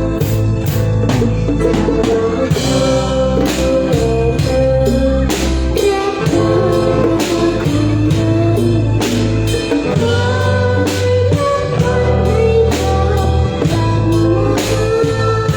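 A live band playing a song: singing and a melodic line over drums and bass with a steady beat.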